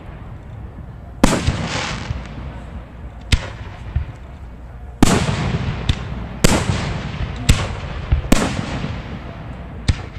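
Aerial fireworks shells bursting at close range: about eight sharp bangs, roughly one a second, each followed by a fading rumble, with the loudest about halfway through.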